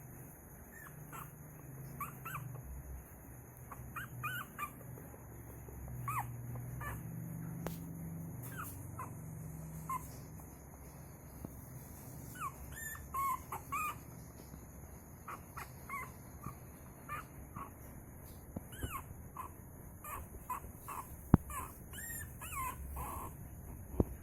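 A puppy whimpering and squealing over and over in short high-pitched cries, the distress of a puppy that can't get past an obstacle. A couple of sharp knocks sound near the end.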